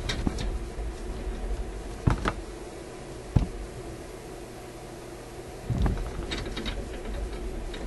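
Handling noise as a camera is repositioned on a cluttered workbench: scattered clicks and knocks, with a duller thump about six seconds in, over a steady low hum.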